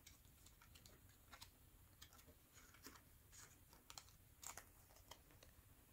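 Near silence with faint, irregular light clicks and rustles of trading cards being drawn from a deck by hand.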